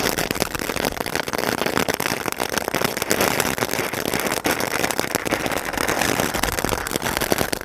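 Ajanta 'Free Fire' ground fountain firework burning, spraying sparks with a dense, continuous crackle.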